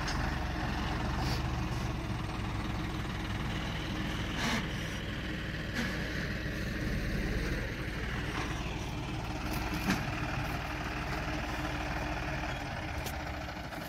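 John Deere 5210 GearPro tractor's three-cylinder diesel engine running steadily while it works with a front dozer blade.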